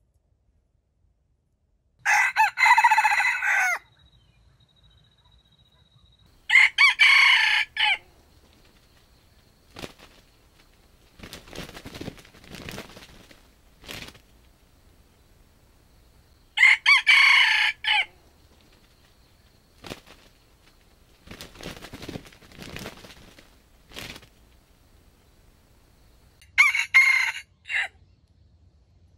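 Red junglefowl roosters crowing: four loud, short crows spaced several seconds apart, with fainter sounds between them.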